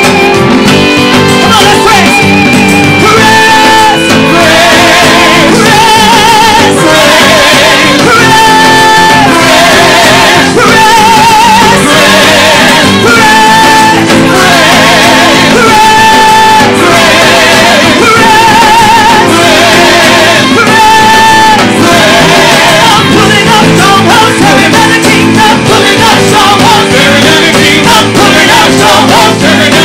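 Live gospel praise-and-worship music: a band with guitar plays loudly and continuously while voices sing long held notes with vibrato, about one every couple of seconds.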